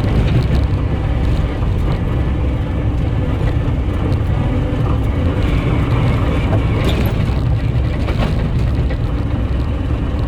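Skid steer engine running steadily under the ride, a loud low drone with a few light clatters about two-thirds of the way through.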